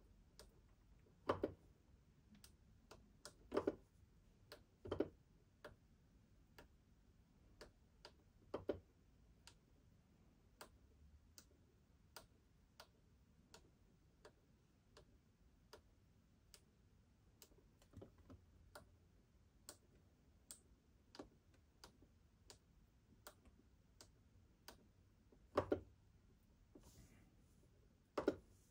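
Faint, irregular clicks with a few louder soft knocks, most of them in the first nine seconds and again near the end, over near silence.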